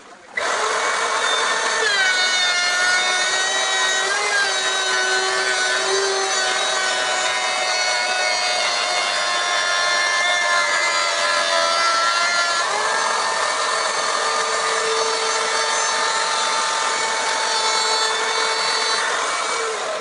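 Power tool cutting wood, starting abruptly and running steadily, its whine drifting up and down in pitch as it works through the wood.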